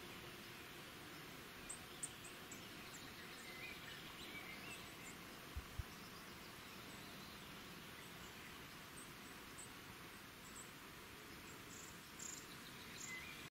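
Faint outdoor nature ambience: a steady low hiss with scattered faint high chirps and ticks of insects or birds, and two soft low bumps about five and a half seconds in.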